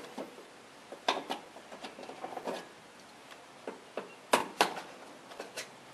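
Plastic push-pin clips on top of a truck's front bumper being pried out with a flat screwdriver: a scatter of short, sharp clicks and taps, the loudest two close together about four seconds in.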